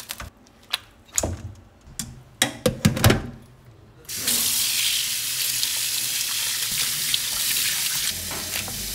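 Metal tongs clicking and knocking against a wire basket as boiled beef pieces are moved. About four seconds in, a kitchen tap comes on and runs steadily into a stainless steel sink, splashing over the parboiled beef as it is rinsed.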